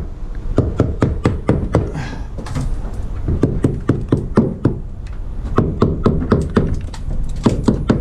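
Quick knocks on wooden concrete forms, about four a second, with a brief lull a couple of seconds in. The forms are being rapped to knock air bubbles out of the freshly poured concrete.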